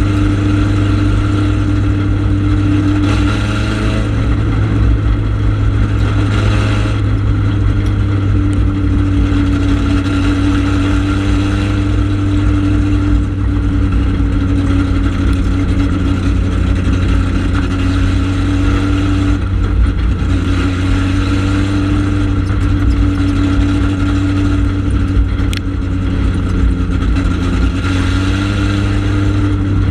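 Four-cylinder ministock dirt-track race car engine running hard under race load, heard from inside the cockpit. Its pitch wavers a little as the throttle changes.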